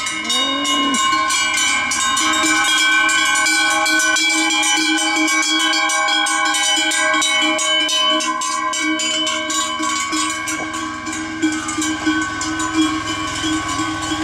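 Large cowbells on the necks of walking dairy cows, clanging constantly and unevenly with each step, several bells ringing at once in overlapping steady tones.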